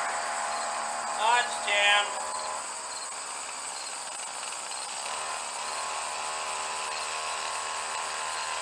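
A Snapper commercial weed eater's small engine running steadily with a constant whine. Two short pitched blips come about a second and two seconds in.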